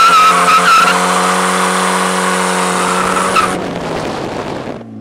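Chevrolet Cavalier Z24's 3.1 V6 held at steady high revs while its front tyres spin and squeal on the asphalt in a burnout. The squeal stops suddenly about three and a half seconds in, and a fainter rushing noise trails off near the end.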